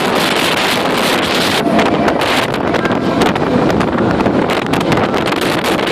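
Strong wind of about 38 mph, gusting past 40, buffeting the microphone: a loud, steady rushing noise with constant flutter.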